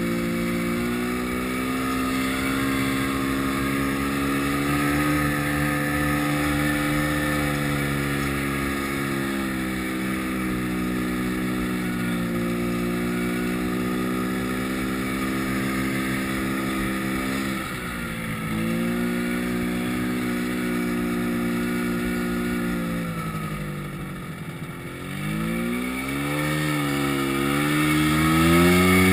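Yamaha snowmobile engine running under throttle on the move, its pitch rising and falling gently with the throttle. It eases off twice, briefly at about two-thirds of the way and longer about three-quarters of the way in, then revs back up with a rising pitch near the end.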